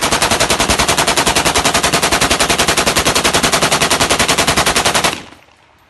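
Toy AK-47's electronic machine-gun sound effect: a steady run of rapid shots, roughly ten a second, that cuts off suddenly about five seconds in.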